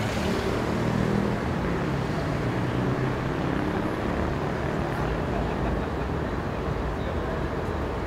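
Steady city street ambience dominated by motor traffic: a low engine hum, strongest at the start, fades over the first couple of seconds and leaves an even wash of road and urban noise.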